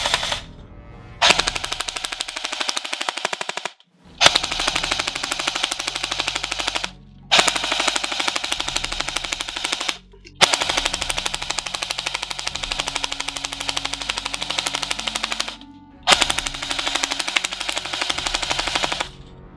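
Cyma M16A3 airsoft electric rifle firing on full auto: a short burst at the start, then five long bursts of rapid, evenly spaced shots, each lasting a few seconds, with brief pauses between them.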